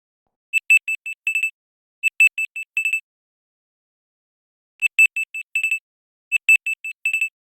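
Android 10 (LineageOS 17.1) system alarm-style tone: rapid, high single-pitched electronic beeps in bursts of about a second. The bursts come in pairs with a longer pause between the pairs, repeating.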